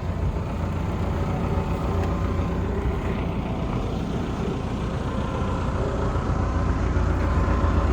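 Diesel engine of a John Deere 225D LC hydraulic excavator idling steadily, a constant low rumble.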